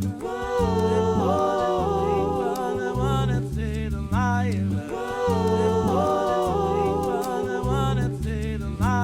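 Live baião-style music: a bass line of held low notes moving every half second or so under a higher, wordless melody that slides and wavers with vibrato.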